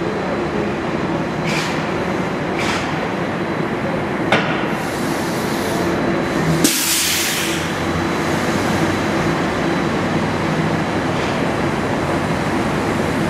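Electric trolley bus rolling past inside an enclosed tunnel, a steady running noise with a low hum, followed by a pickup truck driving through. A sharp tick comes a little after four seconds, and a short, loud burst of air hiss comes about halfway through.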